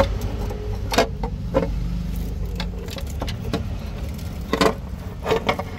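Scattered metallic clinks and taps, about nine, irregularly spaced, as the valve cover is lifted off a Mitsubishi 4D56 diesel's cylinder head and set aside, over a steady low rumble.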